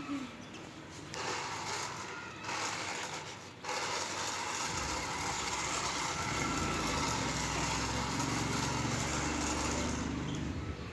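Toy remote-control car's small electric motor and gears whirring in two short bursts, then running continuously from about four seconds in.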